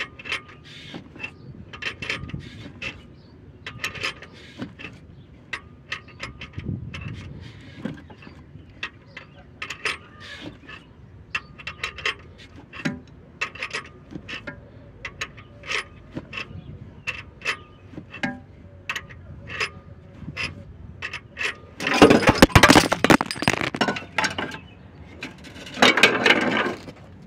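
Three-jaw gear puller being tightened against a crankshaft timing gear: a string of sharp metallic clicks and pops, each with a brief ring, as the gear is forced forward off the crank. Near the end come two loud bursts of rustling as the phone is handled.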